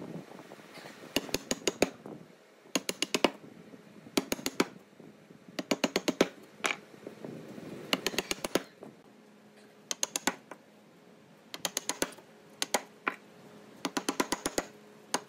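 Wood chisel chopping out a mortise in a solid timber chair leg, driven with quick bursts of sharp taps, several taps per burst, about ten bursts with short pauses between.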